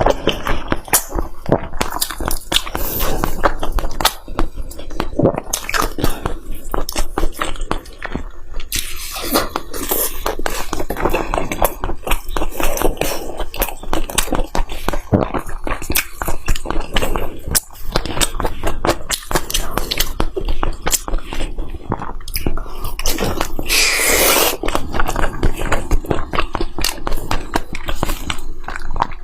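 Close-miked chewing and biting of fatty meat: a dense, irregular run of bites and chews.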